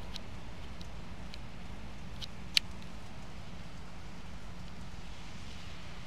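Wet snow falling and pattering, with a few sharp ticks of flakes or drips striking close by, the loudest about two and a half seconds in, over a low steady hum.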